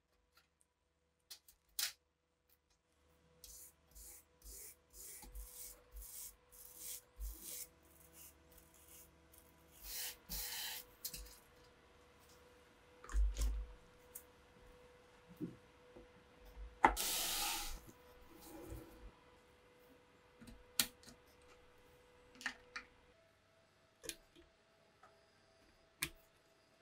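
Rusty steel parts of a PPS submachine gun being handled by hand: a run of separate metal clicks, taps and scrapes. Two longer hissing stretches come near the middle, one about ten seconds in and one about seventeen seconds in, with a faint steady hum underneath.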